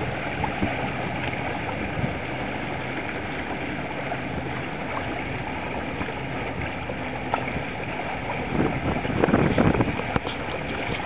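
Water rushing and gurgling past the hull of a boat under way, a steady wash, with louder splashing for a second or two near the end.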